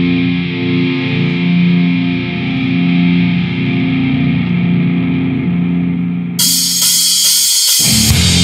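Death metal recording: distorted electric guitar holds slow, sustained chords. About six seconds in, cymbals crash in, and near the end the drums and low end join as the full band comes in heavily.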